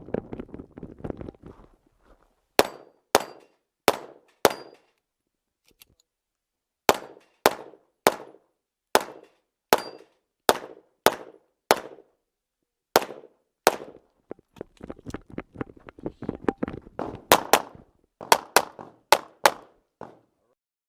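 Open-division Glock pistol fired in a USPSA stage: about twenty sharp shots, mostly in pairs and short runs about half a second apart, with pauses of a second or two between groups.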